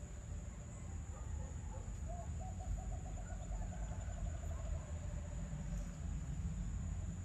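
A steady low rumble of outdoor ambience, with a distant bird call in the middle: a quick run of low, evenly repeated notes lasting about three seconds.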